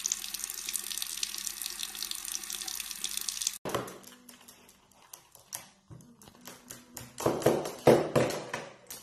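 Water running from a bathroom tap into a sink as a steady hiss, cut off abruptly after about three and a half seconds. Then a scattered run of light taps and knocks on a hard tabletop, loudest near the end, as a small parrot moves across the table carrying a small object in its beak.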